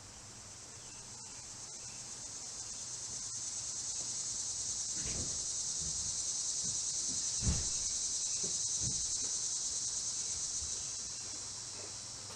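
Insects buzzing in a steady high chorus that swells and then fades away, with a few faint low knocks in the middle.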